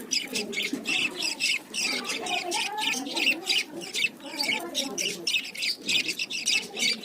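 Budgerigars and finches chirping and chattering together: a dense run of short, quick high chirps over lower warbling chatter.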